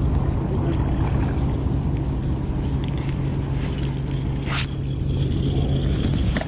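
Conventional casting reel cranked steadily as a small catfish is reeled in, with a faint high whine from the reel and a sharp scrape about four and a half seconds in, over a steady low drone.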